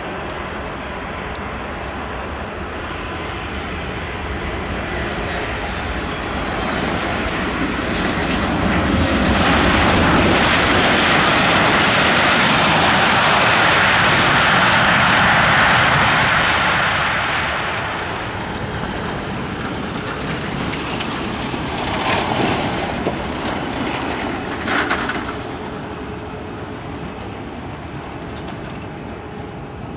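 Boeing 737 MAX 8-200's CFM LEAP-1B jet engines on landing. The noise grows as the airliner touches down and is loudest for several seconds during the rollout, the surge of reverse thrust. It then eases off as the aircraft slows on the runway.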